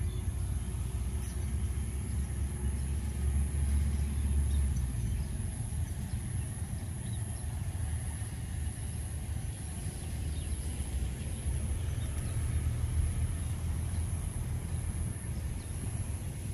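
Low, steady rumble of a distant diesel locomotive hauling a passenger train as it approaches along the track, swelling a little now and then.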